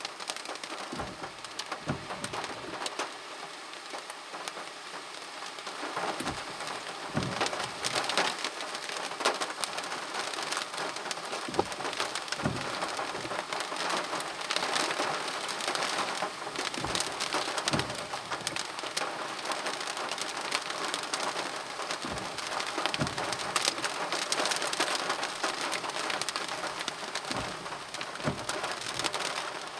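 Rain from a summer cold-front shower pattering steadily, getting heavier a few seconds in, with about a dozen louder drops striking close to the microphone, often in pairs.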